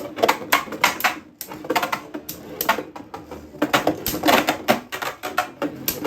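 Two Beyblade Burst spinning tops, a left-spin Zest Achilles in attack mode against Excalibur, battling in a plastic stadium. Rapid, irregular clacks of plastic hitting plastic, with a short lull about a second in.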